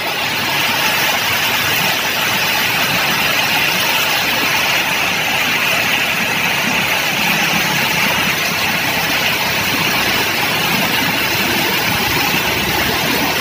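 Steady rush of rain and of traffic driving through deep floodwater on the road, with vehicle engines running low underneath.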